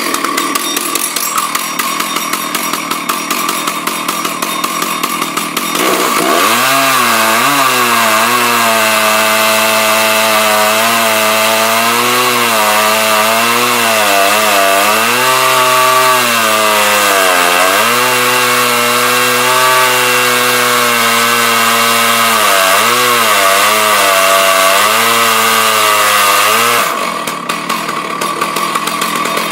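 Husqvarna 298 two-stroke chainsaw running on a milling cut. It buzzes fast for about six seconds, then its engine note drops lower and gets louder, wavering up and down with the changing load for about twenty seconds. Near the end it goes back to the earlier buzz.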